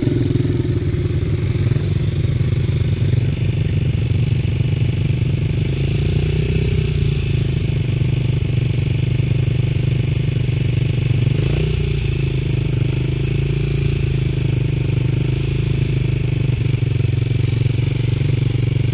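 Dirt bike engine idling steadily close by, its pitch shifting slightly a couple of times.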